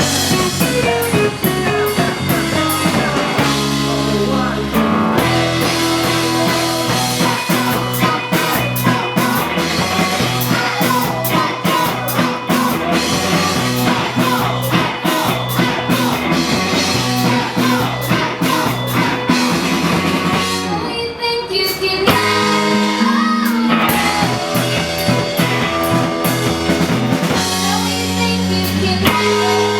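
Rock music with a drum kit, guitar and a singing voice, which thins out briefly about two-thirds of the way through.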